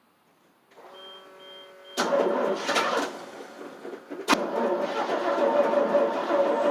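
The 1988 FMC 6000's starter cranks its engine over on a jump booster during a hard start. A pulsing warning beep sounds briefly first, then the loud cranking begins about two seconds in, with a sharp click partway through. The engine does not catch, and the booster is running down.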